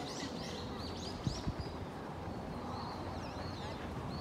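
A small bird chirping in a quick run of short, high rising-and-falling notes for the first second and a half, with fainter calls later, over steady outdoor background noise. Two dull thumps come about a second in.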